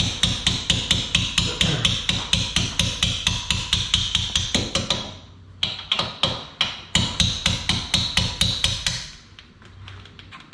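Quick, even metal-on-metal hammer taps, about four a second, driving out the pad retaining pin across a Porsche 996 brake caliper. There is a short break about five seconds in, and the tapping stops about nine seconds in.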